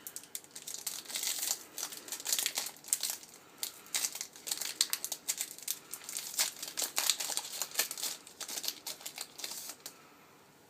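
A Yu-Gi-Oh booster pack's foil wrapper being torn open and crinkled by hand, a dense run of irregular crackles that stops about ten seconds in.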